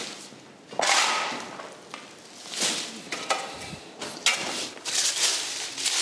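Dry rubble and plaster debris scraped and swept across an old clay-tile floor with a long-handled tool, in an irregular run of short rasping strokes, with gritty debris shifting.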